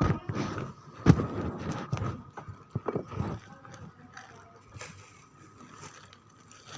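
Irregular knocking and clattering of items being handled while jamu is prepared, busiest in the first three seconds or so and sparser after, over a faint steady whine.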